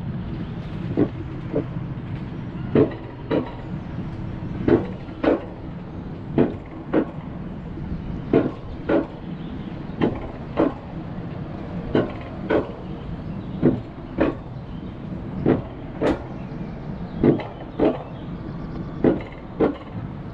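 Alpine coaster sled running along its rail track at a steady pace, with a low rumble. Its wheels clack in pairs about half a second apart, repeating evenly about every 1.8 seconds.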